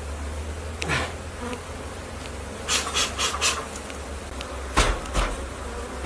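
Agitated, defensive honeybees buzzing in a steady swarm drone around a feral colony being cut out. A few rasping scrapes come about halfway through, and two sharp knocks near the end.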